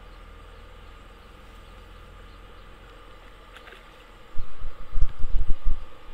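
Faint steady outdoor background, then from about four seconds in loud, irregular low rumbling buffeting on the microphone.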